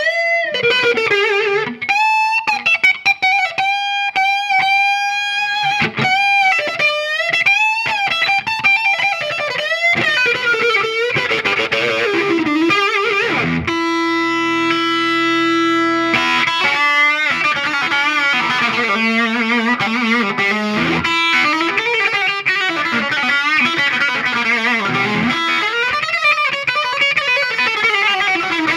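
Electric guitar lead played through a 1967 Marshall JTM50 valve head: fast runs and string bends, with one long sustained note about halfway through.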